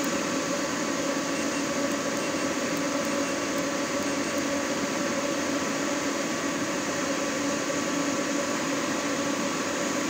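Induction forge and its water cooler running steadily while heating a round bar: an even fan-and-pump hum with a few held tones and no change in pitch.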